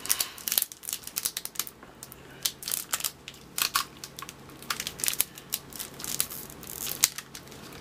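Foil wax pack of 1992 Donruss baseball cards being worked open by hand: irregular crinkling and crackling of the wrapper, with a sharp crackle near the end. The wrapper is hard to tear and is not made for easy opening.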